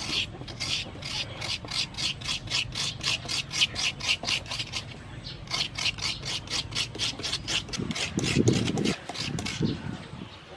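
Fresh coconut meat being scraped out of a half coconut shell with a hand-held metal scraper: quick rasping strokes, about four a second, with a brief pause about five seconds in.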